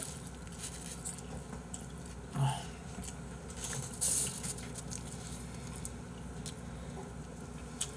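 Soft clicks and rustles of pizza slices being lifted from a cardboard box onto a paper plate with gloved hands, with a brief murmur from a voice about two and a half seconds in and a short rustle about four seconds in.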